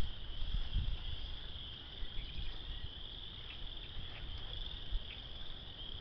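A steady, high-pitched insect chorus, with gusty wind buffeting the microphone as an uneven low rumble and a few soft thumps.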